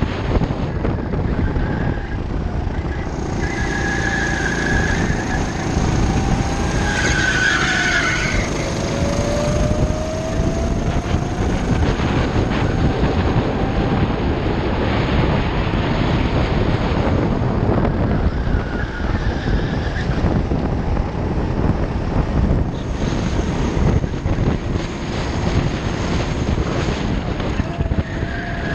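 Rental go-kart's small petrol engine running hard, heard from on board the kart over a dense rushing noise, its note falling as it slows for a corner and rising again as it accelerates.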